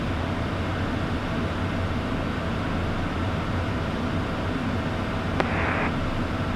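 Steady cockpit noise of a Beechcraft Premier IA twinjet in the climb: rushing air and the drone of its Williams FJ44 turbofans. About five seconds in, a click and a brief burst of hiss come over the radio audio.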